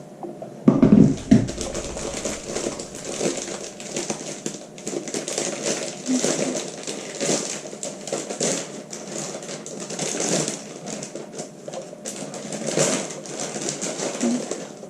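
Pet budgies chattering and chirping, a busy, continuous run of short twittering calls, with a couple of loud knocks about a second in.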